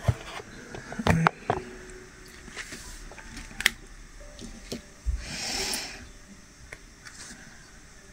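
Small clicks and taps of a diamond painting drill pen picking resin drills from a plastic tray and pressing them onto the canvas, with a brief rustling scrape about five seconds in.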